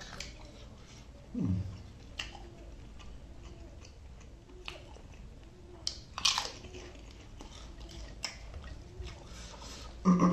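Close-miked eating: a person chewing and biting food with soft wet clicks, and a loud crunchy bite about six seconds in. Two short falling vocal hums, one early and a louder one at the very end.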